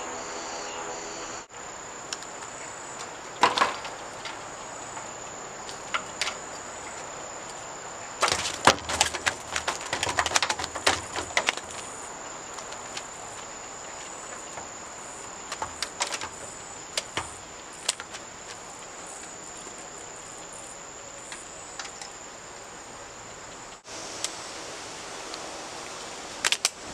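Steady high-pitched chirring of insects, with scattered clicks and knocks from handling a landed snakehead on the wooden deck, bunched around a third of the way in and again past the middle.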